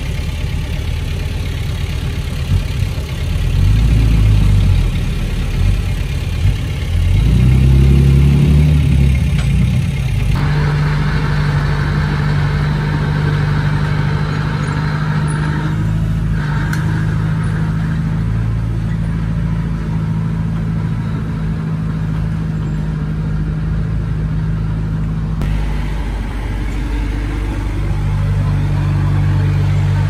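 Heavy diesel engine of a bulldozer running, its pitch rising and falling during the first ten seconds. The sound then shifts abruptly to a steadier engine tone about ten seconds in, and changes abruptly again about five seconds before the end.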